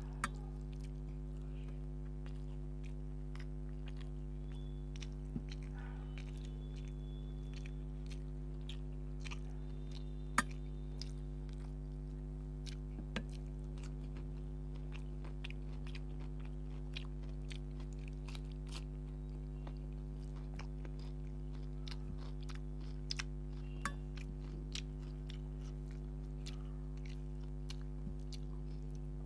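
A person eating rice and fish curry by hand close to the microphone: chewing and mouth sounds with scattered sharp wet clicks and smacks, over a steady low hum.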